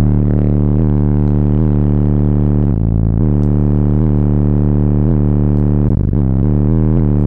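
Loud bass-heavy music played through a Sundown X15 15-inch car subwoofer, heard inside the car's cabin: deep held bass notes with short pitch dips about every second.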